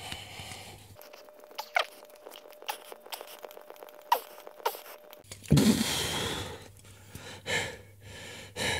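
Hand shock pump being worked in strokes to pressurise an electric unicycle's air shock: short squeaks and clicks from the pump, with a louder breathy rush about five and a half seconds in.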